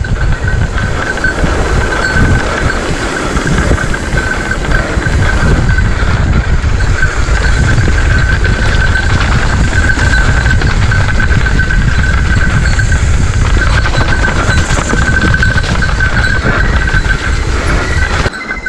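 Mountain bike ridden fast over a rough dirt trail: dense tyre rumble and rattling of the bike and camera mount, with a steady high whine throughout. The rumble cuts off abruptly shortly before the end.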